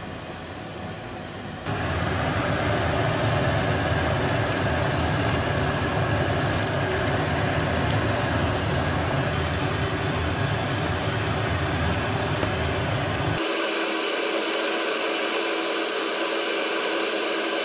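Steady rushing roar of gas burners under a kettle of boiling beer wort. It jumps louder with a deep rumble about two seconds in, and about thirteen seconds in the deep rumble cuts out abruptly, leaving a higher hiss.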